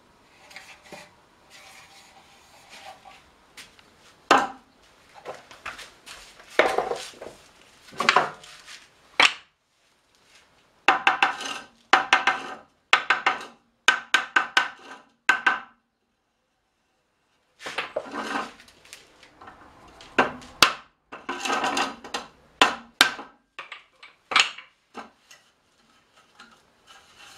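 Cherry-wood barrel staves clattering and knocking against one another and the metal hoop as they are set upright one by one to raise the barrel: runs of hollow wooden clacks, some ringing briefly, with a short silent break about two-thirds of the way through.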